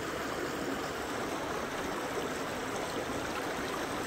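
Shallow creek water flowing over granite boulders and stones: a steady rush and babble of running water.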